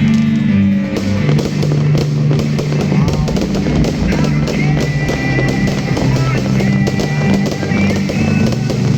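Music with a bass line and drums, with fireworks popping and crackling mixed in.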